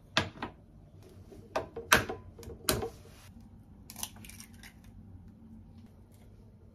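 Eggs being cracked into a bowl: a series of sharp knocks of eggshell against a hard edge, coming in clusters, with fainter clicks of shell being pulled apart about four seconds in.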